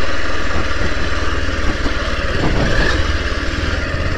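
Motorcycle engine running steadily at low speed while the bike rides over a rough dirt track.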